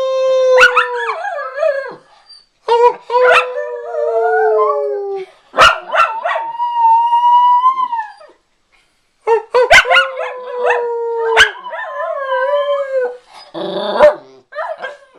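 Miniature schnauzers howling, set off by a fire engine's siren: four long drawn-out howls, each falling slightly in pitch, with short sharp barks between them and a brief rough bark near the end.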